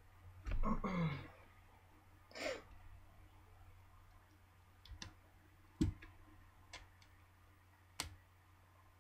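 A few small, sharp clicks and taps as the parts of a BlackBerry Bold 9790 are handled and pressed back into place during reassembly; the loudest click comes about six seconds in. Near the start there is a soft breath or sigh.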